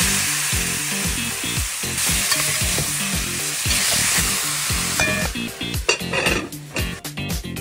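Curry-seasoned chicken pieces sizzling as they brown in hot oil in a pot, over background music with a steady beat. The sizzling fades about five seconds in, leaving the music.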